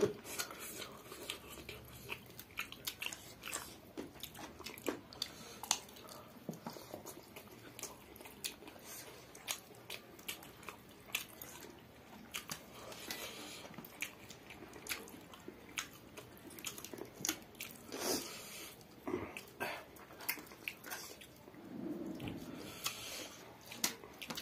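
Close-miked chewing and biting of chicken and rice, with many soft, irregular mouth clicks and smacks.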